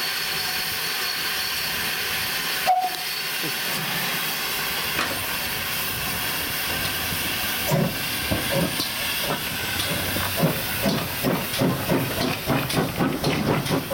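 GWR 1366 Class pannier tank steam locomotive hissing steam while standing, with one sharp short sound about three seconds in. From about eight seconds in it moves off, its exhaust beats starting at about two a second and quickening to about three a second.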